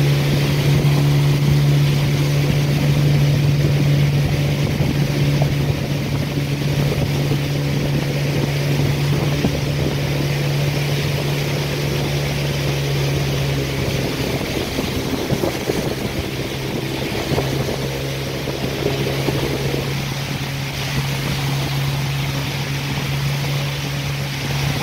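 Motorboat engine running steadily at cruising speed, a constant drone, with the rush of water and wind; the noise gets rougher and choppier for a few seconds in the middle.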